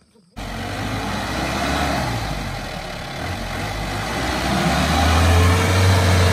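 Mahindra Bolero 4x4 pickup's diesel engine running under load as the truck crawls through deep mud ruts. It cuts in abruptly about half a second in and gets louder about five seconds in.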